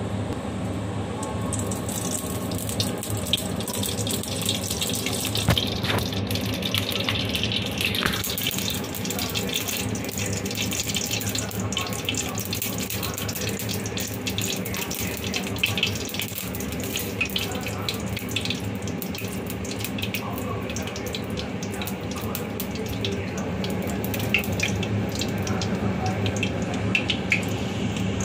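Cooking oil heating in an aluminium kadai over a gas burner: a steady hissing sizzle with scattered small crackles and pops.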